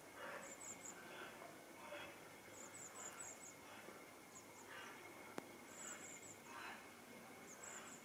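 Quiet outdoor garden ambience: faint, very high chirps in quick little groups of three or four, repeating every second or two, over a soft background hiss, with a single sharp click a little past halfway.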